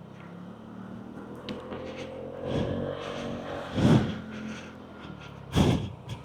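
Lexmoto Aura 125 scooter engine running under way, its note rising a little about two seconds in. Two short, louder whooshes come about four and five and a half seconds in.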